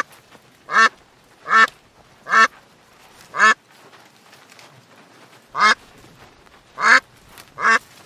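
Domestic ducks quacking: seven short quacks at uneven intervals, with a pause of about two seconds in the middle.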